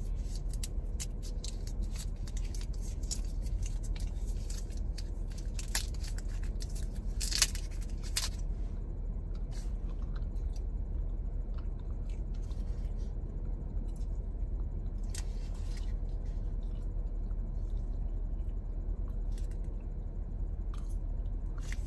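Steady low hum inside a car cabin, with scattered small clicks and rustles, busiest in the first several seconds and with one louder click about seven seconds in.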